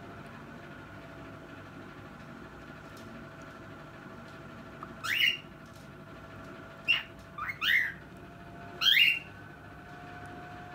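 Cockatiel calling: several short, loud calls that sweep upward in pitch, coming in the second half after a few quiet seconds with a faint steady hum.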